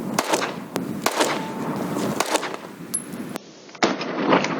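9 mm pistol shots fired one after another, several sharp cracks about a second apart, over wind noise.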